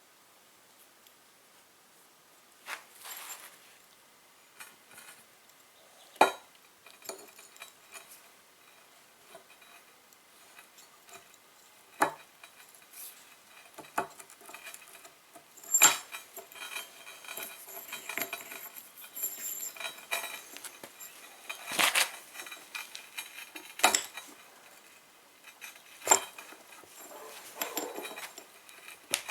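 Metal parts of a hydraulic jack clinking and knocking as they are handled during reassembly: several sharp metallic knocks spread out, with lighter clinking and rattling between.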